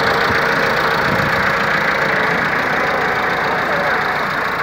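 Massey Ferguson 385 tractor's diesel engine running steadily.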